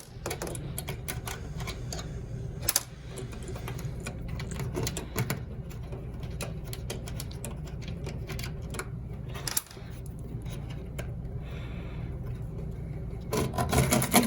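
Wrench clicking and rattling against the metal locking screws that hold a Purex 800i filtration unit's main circuit board, with a couple of sharper knocks, over a steady low hum.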